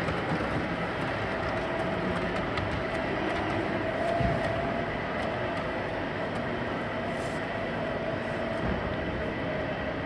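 O gauge model trains running on a large layout: a steady mix of wheel and motor running noise with a faint held whine.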